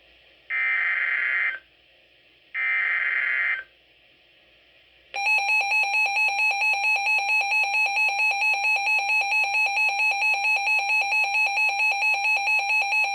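Emergency Alert System SAME header: two one-second bursts of buzzing digital data tones. After a short pause, from about five seconds in, the EAS attention signal follows, a loud, steady alarm tone with a fast flutter. Together they mark the start of a severe thunderstorm warning.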